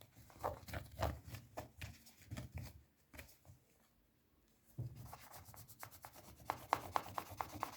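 Short rubbing and scrubbing strokes on the plastic case of a remote control as it is cleaned, with a pause of about a second midway.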